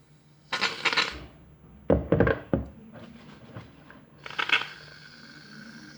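Aerosol shaving foam can spraying weakly in short hisses, one about a second in and another at about four and a half seconds: the can sputters and barely dispenses. A few dull knocks come around two seconds as the can is handled.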